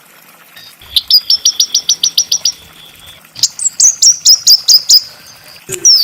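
A small songbird singing: after a second of quiet, a rapid string of about a dozen sharp, high notes, then a second quick phrase of still higher notes, and a single down-slurred note near the end.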